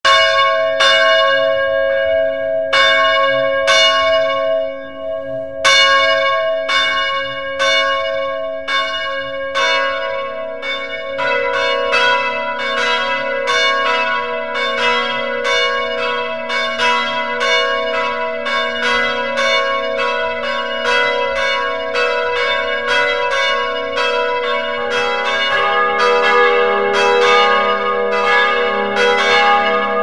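Church bells ringing: struck strokes that ring on and fade. At first the strokes come about once a second, then from about ten seconds in they come faster and overlap, with several bells sounding together.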